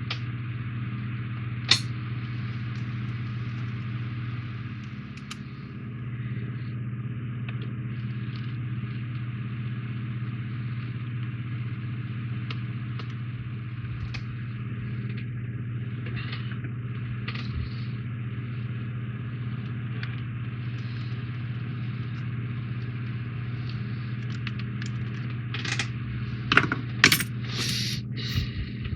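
Small model-kit parts being handled: a sharp click about two seconds in and a cluster of clicks and taps near the end, over a steady low hum.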